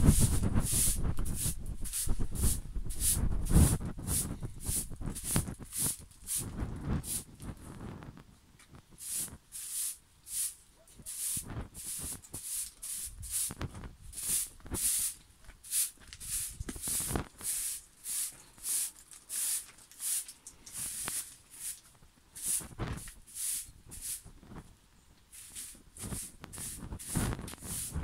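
Short straw hand broom sweeping a concrete step: a steady run of short swishes, about two a second. There is a low rumble under the first several seconds.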